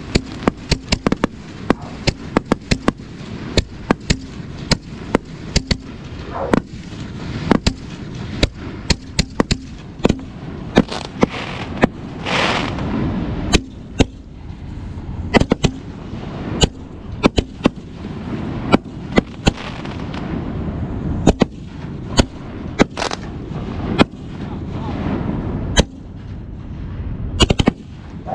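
A fireworks display: a rapid, irregular run of sharp bangs from shells bursting overhead, several a second at times, with a hiss lasting about a second about halfway through.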